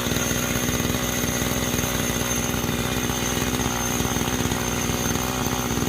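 Two-stroke gasoline chainsaw engine running steadily at an even speed.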